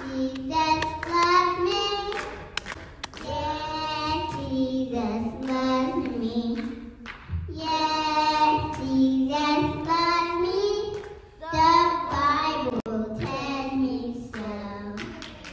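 A young girl singing solo into a handheld microphone, long held notes in phrases with short breaks. The singing cuts off abruptly at the end.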